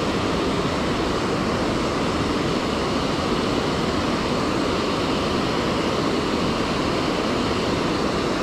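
River water pouring over a low-head dam and churning in the pool below: a steady rushing with no breaks.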